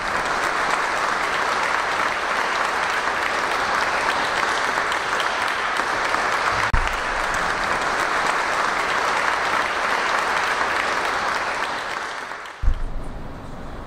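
Audience applauding, dying away near the end. A brief low thump comes about halfway through, and a louder one as the applause fades.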